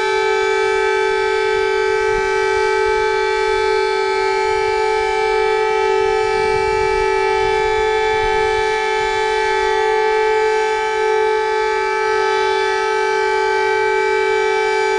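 Emergency alert attention tone: one steady, unwavering chord with many buzzy overtones, held without any rise, fall or break.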